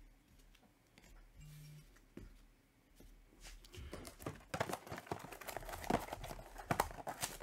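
Quiet at first, then from about four seconds in a quick, dense crinkling and rustling of trading-card pack wrappers being handled.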